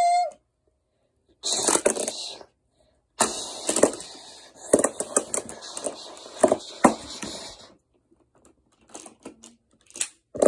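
A wooden toy block knocking against translucent plastic magnetic building tiles, which clatter as they shift and fall. There is one short burst of clatter, a longer run of knocks and rattling after it, and a few lighter knocks near the end.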